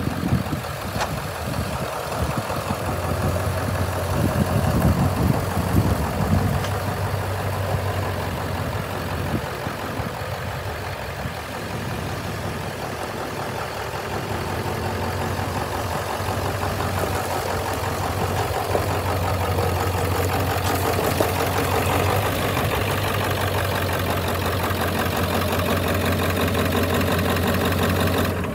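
Engine of a 1996 Ford F-350 sprayer truck running steadily as the truck is driven slowly, louder for a couple of seconds about four seconds in.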